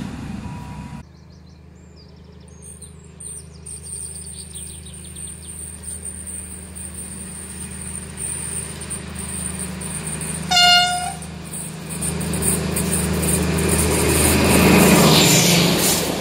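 A DB class 218 diesel-hydraulic locomotive hauling double-deck coaches approaches and passes, its diesel engine drone growing steadily louder as it nears. It gives one short horn blast about two-thirds of the way through. The first second is the tail of another passing train, cut off abruptly.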